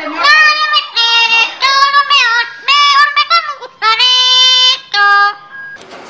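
A pet parrot singing in a humanlike voice: a run of about eight short sung notes that bend up and down in pitch, with one longer held note past the middle.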